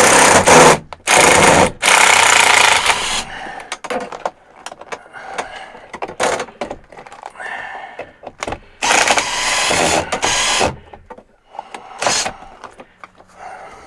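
Handheld power drill running in several short bursts as it backs out screws.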